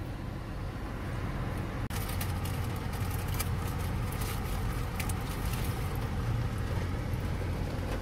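Steady low rumble inside a car. From about two seconds in, scattered light taps and crackles join it.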